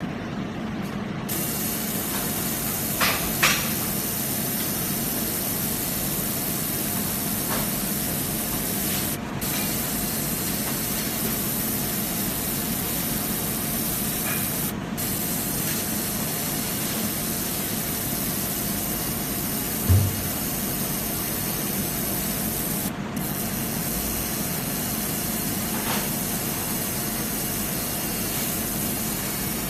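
Laser engraving machine running while it etches a glass turned on a rotary attachment: a steady airy hiss with a faint hum under it. A few brief clicks come early, and a short low thump comes about two-thirds of the way through.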